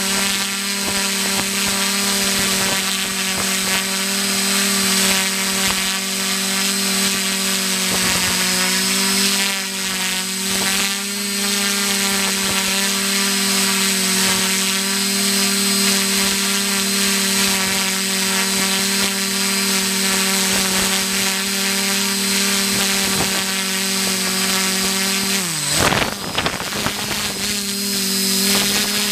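XJ470 multirotor drone's electric motors and propellers humming steadily in a hover, heard from its onboard camera. About 26 s in, the motor pitch drops sharply and then climbs back as the drone descends toward the ground.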